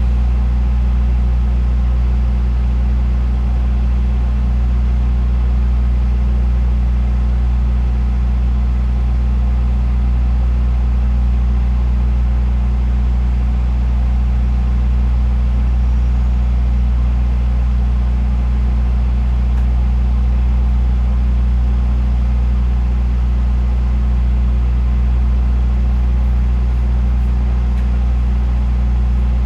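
Diesel train engine idling steadily: a constant low hum.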